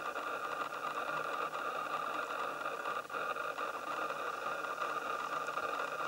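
Steady whirring hiss that stays even throughout, with no calls or distinct events.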